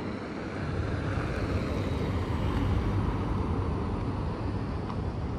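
Road traffic: the steady rumble and tyre noise of cars on a wide road, swelling as a car passes about a second in and easing off slowly.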